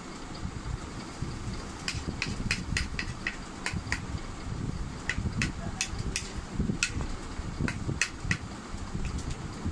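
Plastic spoon clicking and scraping against a plate while scooping up fried rice: an irregular run of sharp clicks from about two seconds in until near the end, over a steady low rumbling background noise.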